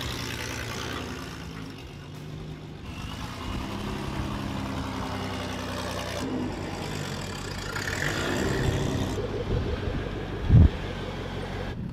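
Vehicle engine running, heard across several short clips that cut abruptly from one to the next, with a single loud thump near the end.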